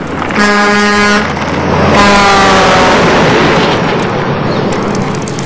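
A vehicle horn sounds a steady note for about a second, then honks again about two seconds in as the vehicle drives past, the horn's pitch falling as it goes by. Road noise fades over the following seconds.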